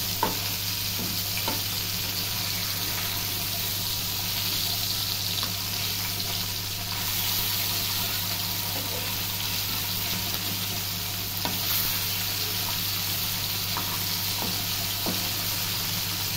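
Whole parai (trevally) fish sizzling steadily in hot oil in a shallow pan, with the occasional scrape and tap of a metal spatula turning them. A steady low hum runs underneath.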